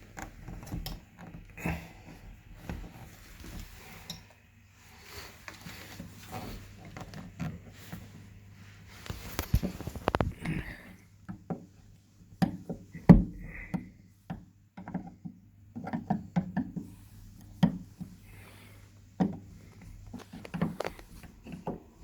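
Plastic clicks and knocks of a screwdriver prying at and opening a tight hinge cover cap on a uPVC door. The handling is irregular, with one sharp knock about 13 seconds in the loudest.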